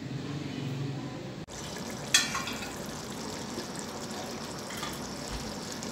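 Potato and mince curry simmering in an aluminium pot, a steady bubbling hiss, with one sharp clink about two seconds in.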